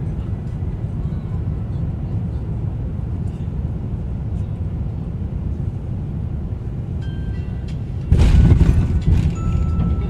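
Cabin noise of an Airbus A350-900 on final approach, a steady low rumble. Near the end the main gear touches down hard, a sudden loud jolt followed by a louder rumble of the wheels on the runway and some cabin rattles.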